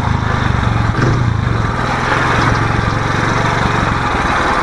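Motorcycle engine running steadily with a fast, even firing pulse as the bike is ridden.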